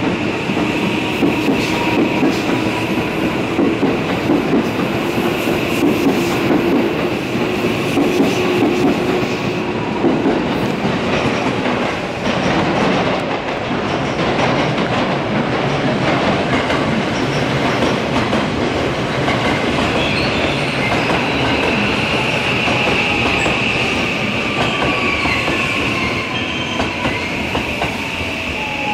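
An electric commuter train moving through the platform, its wheels clattering over rail joints and a steady high flange squeal growing stronger in the second half. Near the end a tone glides down in pitch.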